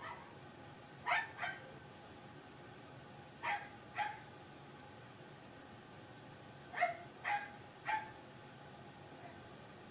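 A puppy yapping: short, high-pitched barks in twos and threes, about eight in all.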